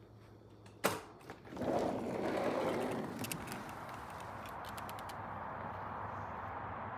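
A door latch clicks about a second in and the door is pulled open with a rushing swell of noise, then a steady outdoor hiss runs on with a few light ticks.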